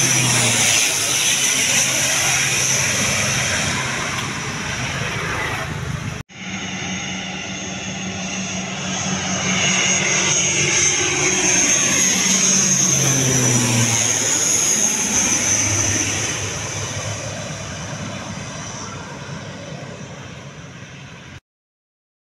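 Twin Pratt & Whitney PW127G turboprops and six-blade propellers of a CASA C-295 transport passing low overhead on landing approach: a loud drone with a high steady whine, the engine note falling in pitch as it goes over. The sound cuts out for an instant about six seconds in, swells again and drops in pitch around thirteen seconds in, then fades and stops abruptly a second before the end.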